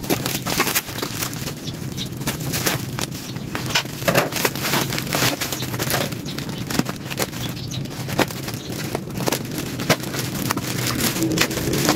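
Plastic protective packaging being handled and unwrapped: bubble wrap and an inflatable air-column bag crinkling, with many irregular sharp crackles.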